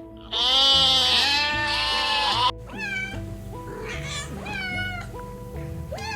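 A long, loud, quavering bleat that cuts off abruptly about two and a half seconds in. It is followed by a cat meowing several short times over steady background music.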